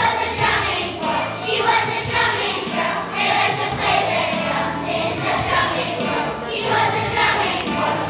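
Children's choir singing together over a musical accompaniment with a steady, stepping bass line.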